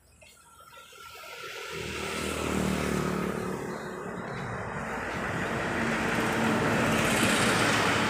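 An engine grows louder over about two seconds, then keeps running steadily and loudly.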